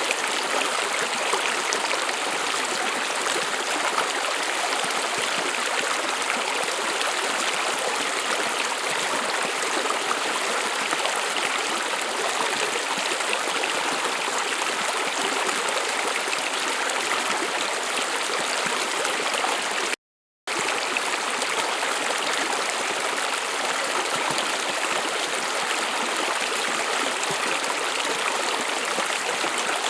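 A brook running over stones: a steady rushing and gurgling of water that never changes. The sound cuts out completely for about half a second some twenty seconds in, then resumes.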